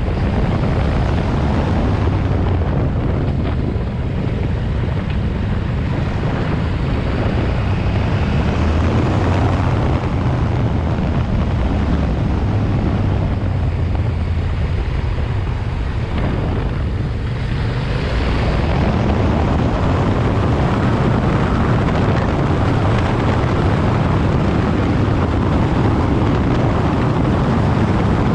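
Yamaha Ténéré 700's 689 cc parallel-twin engine running under way, with wind rushing over the microphone. It eases off twice, briefly near the start and for a few seconds past the middle, then pulls again.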